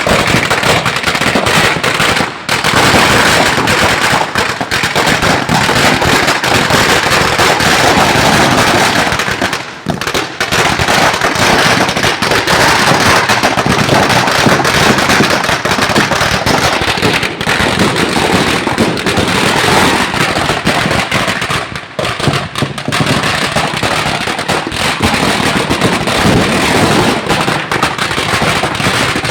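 Fireworks and firecrackers going off in a dense, almost unbroken run of loud bangs and crackle, easing briefly about two seconds in, ten seconds in and just after twenty seconds.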